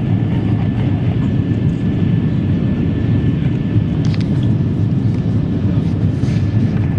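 Steady cabin noise of an Airbus A350-900 in flight, heard from a window seat: a constant low rumble of airflow and its Rolls-Royce Trent XWB engines, with a faint steady whine above it. A couple of faint clicks come about four seconds in.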